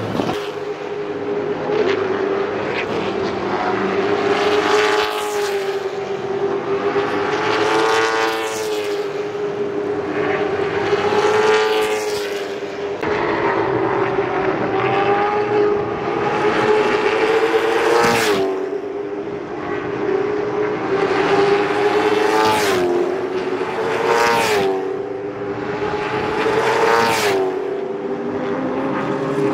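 CARS Tour race cars' V8 engines running at full throttle while lapping the track. The engines drone continuously, and a car passes close by about seven times, each pass rising then falling in pitch.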